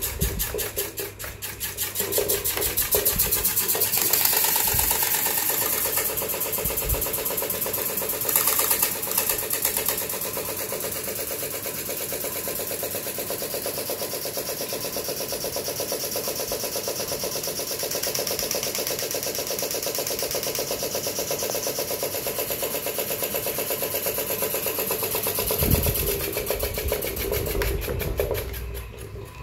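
Electric fan running noisily, a steady whirring with a fast, even rattling pulse from the spinning blades and motor, with a few low knocks.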